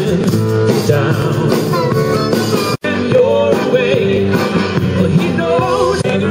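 A band playing upbeat rock-and-roll music. The sound drops out for an instant about three seconds in.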